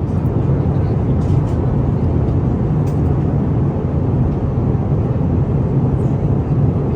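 Steady in-flight cabin noise of an Airbus A350-900: an even, low rumble of engines and airflow that holds the same level throughout.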